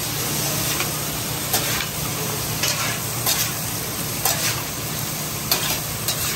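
Seafood and vegetables sizzling on a steel flat-top griddle while two metal spatulas toss them, with a sharp metal scrape or clack of spatula on griddle roughly once a second.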